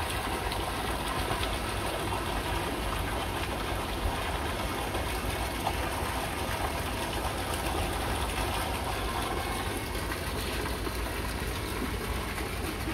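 Steady rushing of water over a low rumble, with no distinct events.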